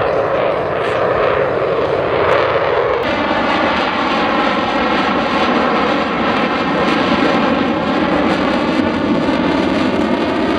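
Single-engine F-35A jet, its F135 turbofan running loud and continuously in a slow, high-angle-of-attack pass. About three seconds in, the rumble settles into a steadier, hollow-toned jet noise.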